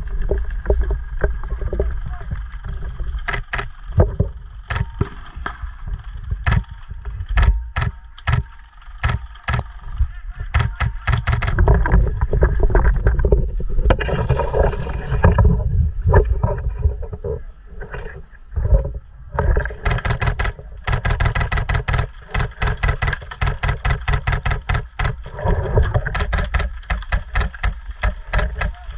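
Airsoft guns firing in a skirmish: scattered single shots and short strings of sharp cracks, then from about twenty seconds in, long rapid full-auto bursts, over a steady low rumble.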